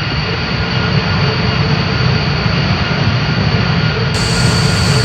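Loud, steady heavy-machinery drone: a deep rumble with a faint high whine above it.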